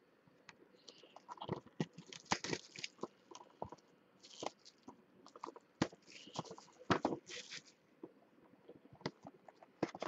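Clear cellophane wrap being torn and crumpled off a sealed baseball card box, in irregular crackling bursts with sharp clicks of the box being handled.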